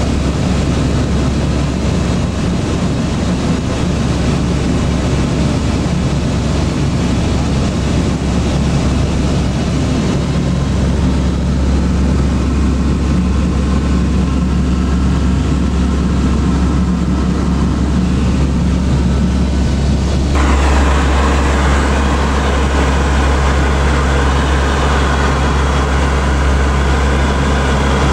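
Steady drone of a C-130's four turboprop engines and propellers, heard from inside the aircraft. About two-thirds of the way through, the sound changes abruptly to a brighter, noisier roar.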